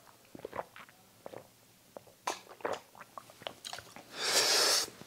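Swallowing and small wet mouth clicks of someone drinking from a glass, then a short rush of breath a little after four seconds in.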